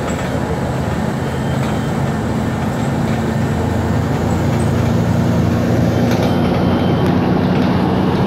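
Steady drone of a moving bus heard from inside the passenger cabin: a low engine hum under continuous road noise. The hiss at the top thins about six seconds in.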